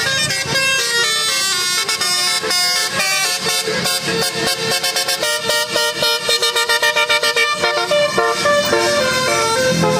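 Indonesian bus 'telolet' horn, a set of musical multi-tone horns, playing a melody of stepped notes, with a fast run of short clipped notes about halfway through.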